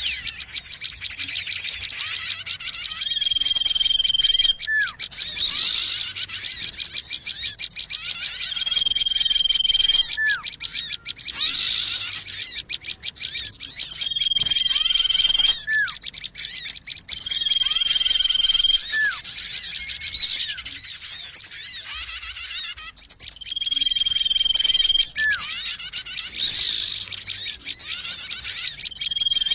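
Bird-lure recording of a noisy chorus of small songbirds chirping and twittering all at once, with a clear high whistle about a second long returning every few seconds.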